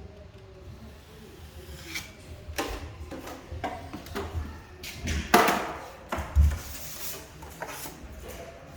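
Drywall taping knife working joint compound, with irregular short scrapes and knocks of the steel blade against the mud pan and the ceiling joint, the loudest about five seconds in, and low dull thumps between them.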